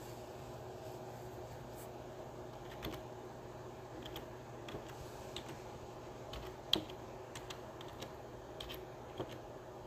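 Faint, scattered small clicks and crackles of chopped spinach leaves being handled and settling in a cooking pot, the loudest about seven seconds in, over a low steady hum.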